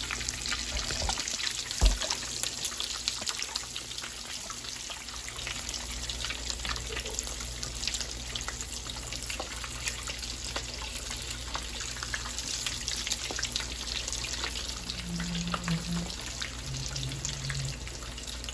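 Empanadas deep-frying in hot oil: a steady crackling sizzle with many fine pops. A single sharp knock about two seconds in.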